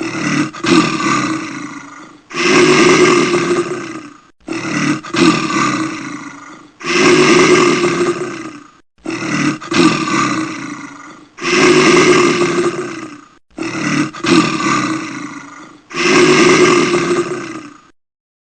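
A bear roaring, about eight roars of roughly two seconds each, back to back. The roars alternate between one that starts sharply and trails off and a longer, steadier one, and they stop shortly before the end.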